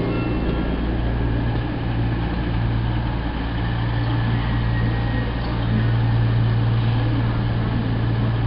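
The underfloor diesel engines of a CrossCountry Voyager diesel-electric multiple unit running steadily as the train moves slowly through the station, with a low hum that grows louder about six seconds in.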